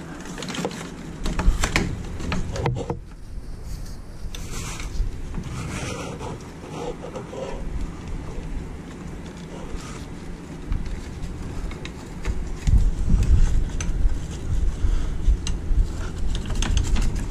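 Hand work on an engine: light clicks, taps and scraping of metal parts and a hand tool as a bolt is fitted, with heavier low knocks in the last few seconds.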